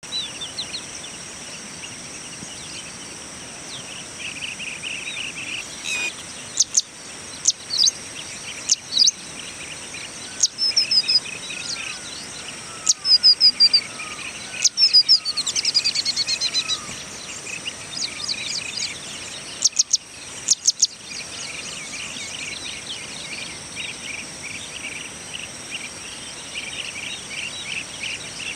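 Birds calling over a steady, high insect drone. Sharp chirps and short rapid trills come in clusters, loudest around the middle, over a continuous background of softer buzzy calls.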